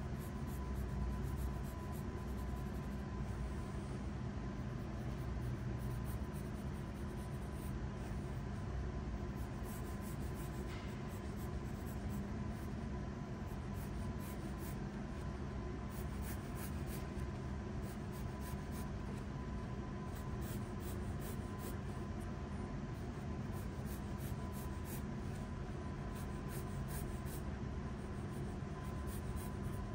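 Pencil scratching across paper in many short sketching strokes, busier in the second half, over a steady faint hum.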